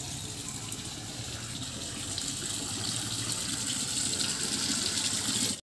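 Water gushing from an outdoor tap into a plastic bucket, filling it, growing a little louder as it goes.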